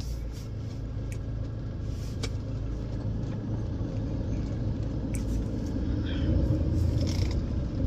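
Steady low rumble of a car driving slowly, engine and road noise, with a few faint clicks.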